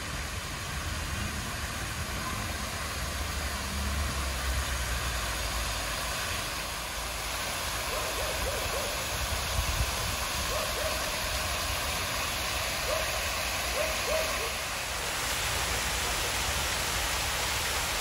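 Water from a multi-jet stone fountain splashing and spattering into its basins, a steady hiss over a low rumble, getting brighter and louder near the end. A few short calls sound in the middle.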